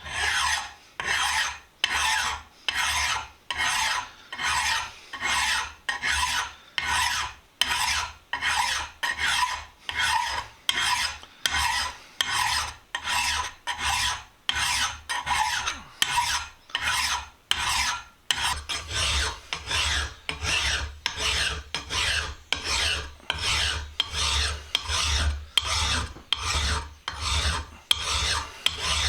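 Hand file rasping on the cast metal of a vise part in steady, even strokes, about three every two seconds.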